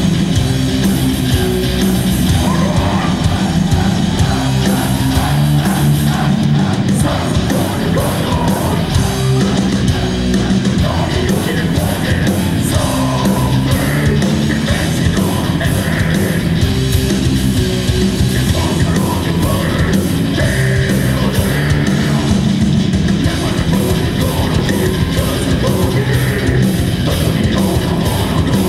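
Live heavy metal band playing loud: distorted electric guitars, bass and drums with fast, even drum hits, and yelled vocals.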